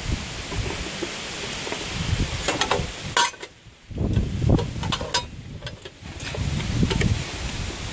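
Wind rumbling on the microphone, with a few sharp plastic clicks about three seconds in as a hand works the weatherproof cover of an outdoor receptacle box.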